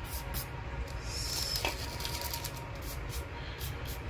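Faint rustling and soft clicks of handling over a steady low hum.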